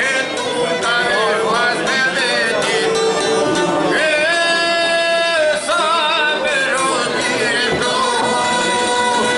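Man singing a northern Albanian folk song in a wavering, ornamented voice, holding one long note about halfway through, accompanied by a long-necked two-string lute and a violin.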